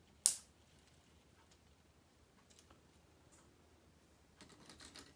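Plastic K'nex parts clicking as a seat and its locking clip are snapped onto the model Ferris wheel: one sharp snap near the start, then a cluster of light clicks near the end.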